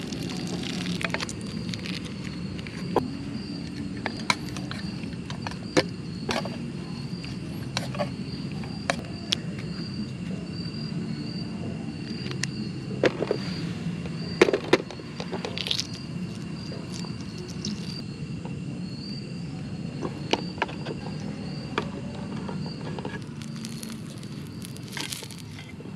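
Camp cooking on a canister gas stove: a steady low burner rush under scattered clicks and clinks of utensils on aluminium mess tins and a small frying pan, with crickets chirping steadily in the background.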